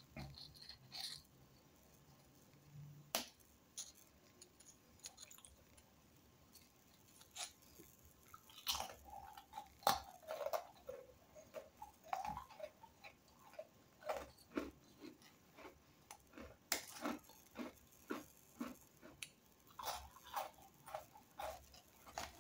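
Hard biscuits, Parle-G among them, snapping and crumbling between the fingers, with crackling of foil biscuit wrappers. The clicks and crunches come sparsely at first and grow busier about a third of the way in.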